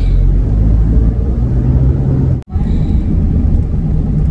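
Steady low rumble of a moving car's engine and road noise, heard from inside the cabin. It cuts out abruptly for an instant about two and a half seconds in.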